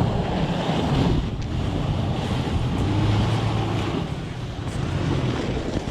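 Off-road vehicle's engine running under steady load while driving over rough ground, a low hum that rises and falls slightly in pitch, over road and wind noise.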